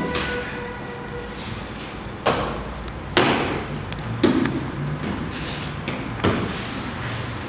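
Several separate sharp thuds or knocks, a second or two apart, over a steady low background noise.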